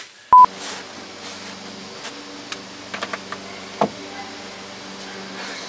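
A short, loud beep of a censor bleep near the start. Then a steady low hum with scattered light clicks and one sharper knock as the wooden backrest and support arms of a cedar lounge chair are handled.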